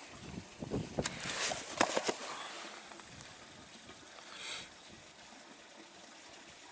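Handling noise of a wet pump held up close to the camera: a cluster of knocks, clicks and scrapes in the first two seconds and a short hiss about four and a half seconds in.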